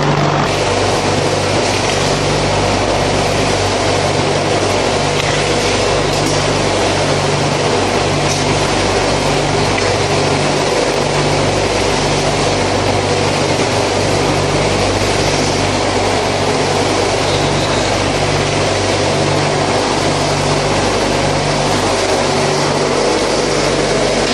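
Electric concrete pan mixer running steadily, its blades churning a damp cement mix. It makes a loud even machine noise with a constant low hum and a low beat about once a second.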